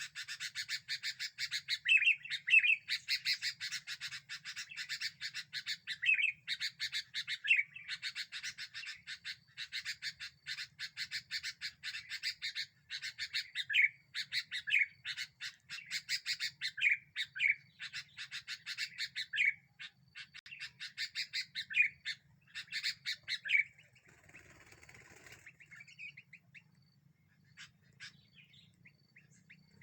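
Sooty-headed bulbul (kutilang) chattering: repeated runs of rapid harsh notes, each run ending in a short pitched call, breaking off about three quarters of the way through.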